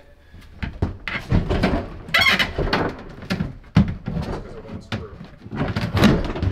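Knocks, clunks and scrapes of a van-conversion cabinet piece being worked loose and pulled out, with the sharpest knock a little before four seconds in.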